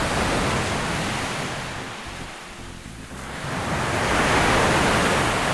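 Ocean surf washing on the shore: one wave's wash fades, then another builds and breaks loudest about four seconds in.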